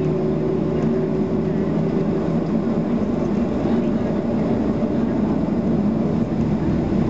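Steady cabin noise of a Boeing 737-800 with its CFM56-7B turbofan engines running: a drone with a few steady hum tones over an even rush of air.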